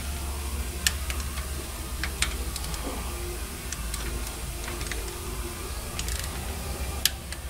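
Scattered sharp metallic clicks and taps of a hand wrench and timing-chain parts being fitted on an engine's front, over a steady low hum.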